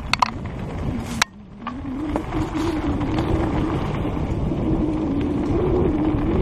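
Mountain bike riding on a dirt trail, heard from a helmet camera: a steady rumble of tyres and wind noise with a buzzing tone that wavers in pitch, and a sharp knock a little over a second in.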